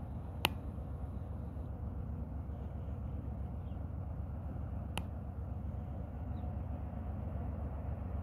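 Steady low rumble of a large container ship passing, with two sharp clicks, about half a second in and about five seconds in.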